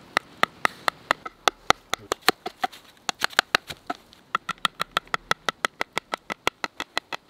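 Knife being batoned through a turkey's backbone with a wooden stick: a steady run of short, sharp knocks, about four or five a second.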